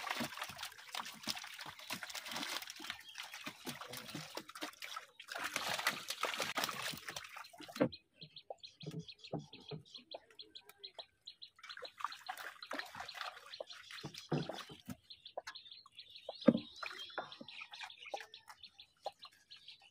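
Water splashing and dripping as a wet monofilament gill net is pulled hand over hand out of flood water over the side of a wooden boat. After about eight seconds it turns quieter: scattered drips and small knocks as fish are handled against the boat, with one sharp knock near the end and birds chirping faintly.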